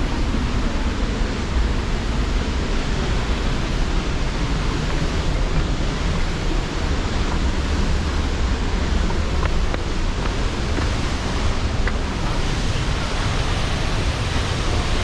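Waterfall's falling water rushing as a steady, even noise.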